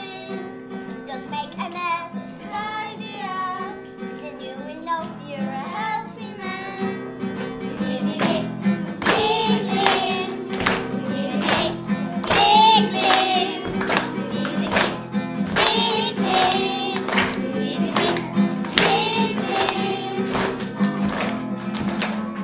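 Group of children singing a song with instrumental accompaniment. About eight seconds in a steady beat joins and the music grows louder.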